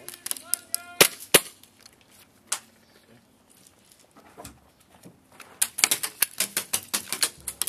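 Airsoft guns firing: two sharp shots a third of a second apart about a second in, another a little later, then a rapid, uneven string of shots over the last two seconds.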